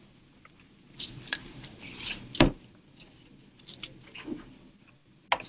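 A few light clicks and knocks against low room noise, with one sharper knock about two and a half seconds in.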